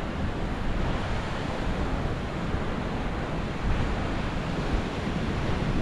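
Ocean surf breaking on a beach, a steady wash of waves, with wind gusting over the microphone.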